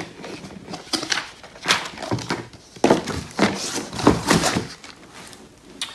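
Cardboard boxes being handled: flaps folded shut and a box slid and lifted, making a run of irregular short scraping and rustling noises.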